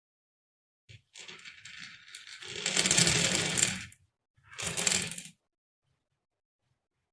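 Marbles rolling and clattering down a marble-run track. A rattle builds to its loudest about three seconds in, then a second, shorter run of clatter follows about a second later.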